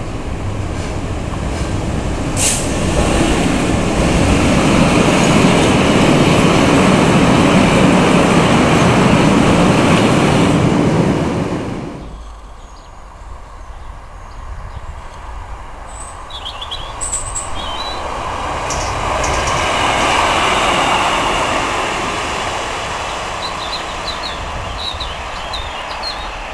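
A Class 66 diesel locomotive hauling a train of tank wagons passes close by. Its engine and wheel noise builds to a loud peak and cuts off suddenly about twelve seconds in. Then a Class 150 Sprinter diesel multiple unit runs along the line, its sound swelling and easing off, with birds chirping.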